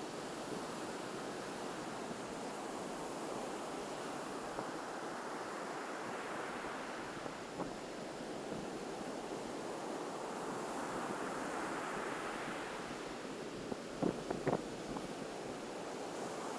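Ocean surf breaking and washing on a sandy beach: a steady rush that swells and eases every few seconds. A few short bumps near the end.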